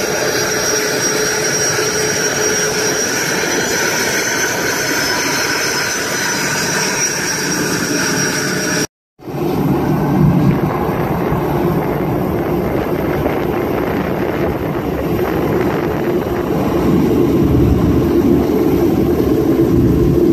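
Jet engines on an airport ramp: a regional jet taxiing past with a steady engine whine. After a brief cut comes a deeper jet rumble that grows louder near the end as a Boeing 747-8 taxis by.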